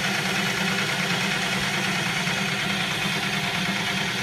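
Steady mechanical hum with a rush of air, the constant running noise of an indoor shooting range's ventilation system.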